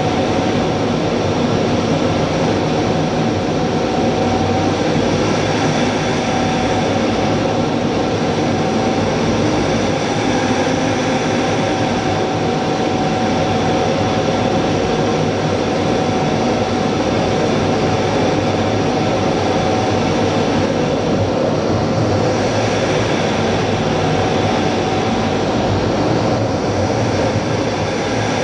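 Cockpit noise of an A-10 in flight, heard inside the canopy: a steady, loud rush of airflow and the running of its twin General Electric TF34 turbofan engines, with a few steady whining tones through it.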